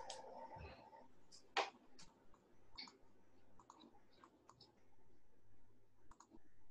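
Faint, scattered clicks of a computer mouse button and keyboard keys, with one sharper click about a second and a half in.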